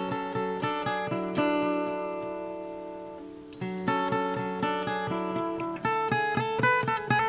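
Background music on acoustic guitar: plucked notes, a chord left ringing and fading for a couple of seconds about a third of the way in, then picking resumes.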